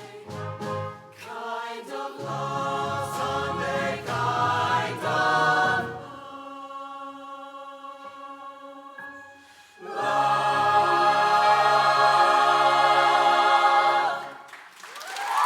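Show choir singing with a live band: a sung passage, a softer sustained chord in the middle, then a loud held final chord that cuts off about a second before the end.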